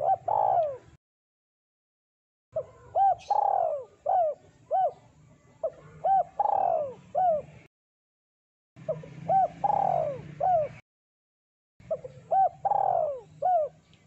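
Spotted dove cooing: about five repeated phrases, each of short coos around a longer drawn-out coo that falls in pitch.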